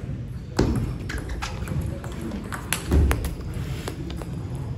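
Table tennis rally: the celluloid ball clicking sharply off the paddles and table about twice a second, with a loud low thump about three seconds in.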